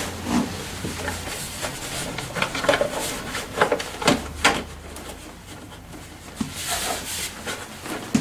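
Plastic scooter front fender being pushed and worked into its mounting slots by hand: scraping and rubbing, with a handful of sharp plastic clicks and knocks about three to four and a half seconds in, and a brief rustle near the end.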